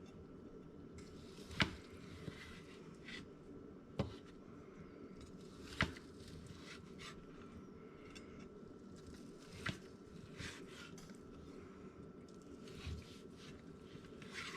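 Knife carving a cooked venison roast on a cutting board: soft slicing sounds with a few sharp knocks of the blade on the board, four of them clearest, over a steady background hum.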